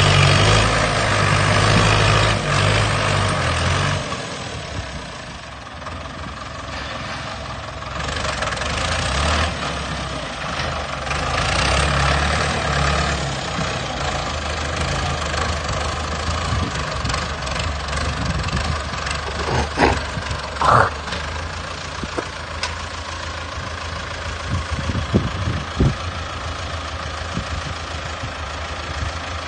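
Heavy machine's engine running, loudest in the first few seconds, then settling to a steadier run, with a few sharp knocks in the second half.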